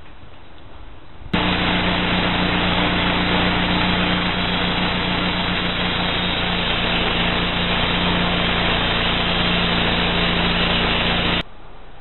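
Homemade band sawmill running on its small gasoline engine, a steady, even engine-and-blade noise. It starts abruptly about a second in and cuts off sharply near the end.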